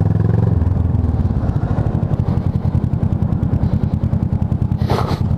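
Kawasaki ER-6n's parallel-twin engine running steadily at low revs as the motorcycle rolls slowly through traffic.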